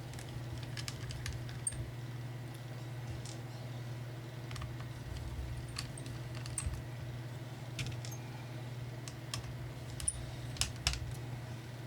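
Scattered, irregular light clicks and small metallic taps of a small screwdriver and screws as the keyboard screws are taken out of a Dell E6420 laptop, over a low steady hum.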